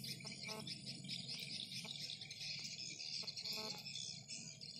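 Dense, continuous, high-pitched insect chorus of crickets and cicadas at dusk, with a few faint short clicks and brief tones underneath.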